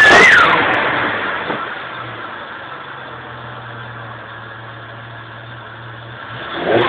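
Turbocharged Jeep 4.0-litre straight-six revved once: a whistle climbs and falls away as the revs drop, and the engine settles to a steady idle. Near the end it starts to rev again.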